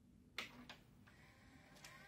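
Faint mechanical clicks from an open Panasonic Omnivision VHS video cassette recorder: one sharper click about half a second in, then two softer ones over near silence.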